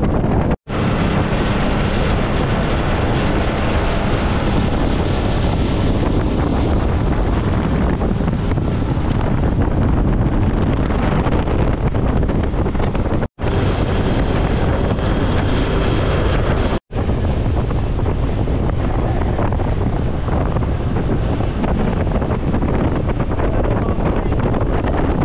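Power boat under way: heavy wind buffeting on the microphone over the rush of water past the hull and the boat's engine. Three very short silent gaps break it, about half a second in, around 13 seconds and around 17 seconds.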